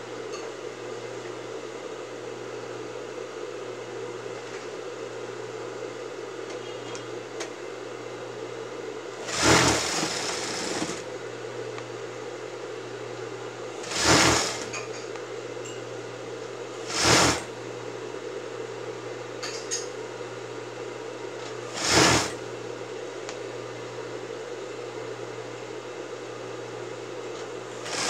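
Sewing machine stitching through fabric in five short runs, the first about a second and a half long and the others briefly, over a steady low hum.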